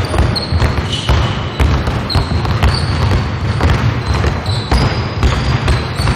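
Several basketballs being dribbled at once on a hardwood gym floor: a dense, irregular stream of overlapping bounces, with brief high squeaks here and there.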